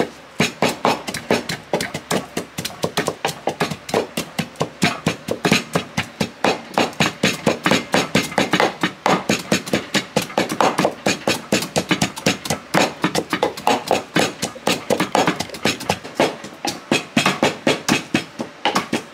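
Pestle pounding Thai curry paste in a mortar at a steady beat of about three strikes a second, crushing lemongrass, shallots, garlic, turmeric, chillies and shrimp paste into a paste.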